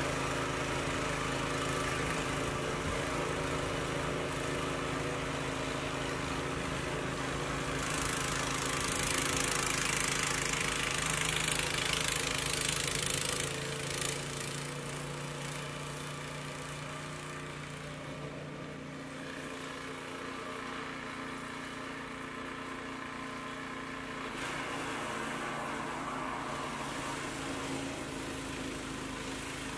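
Small gas snowblower engine running steadily while it clears and throws snow. A louder rushing hiss rises over it for several seconds in the middle and then falls away.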